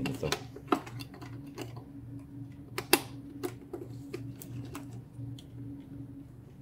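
Scattered sharp clicks and taps of plastic cable connectors and ribbon cables being handled and pressed into place inside an open ventilator's metal chassis, the loudest about three seconds in. A steady low hum runs underneath.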